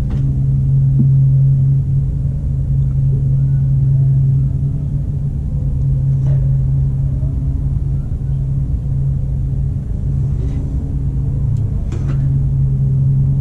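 Steady low machine hum with a few light taps over it.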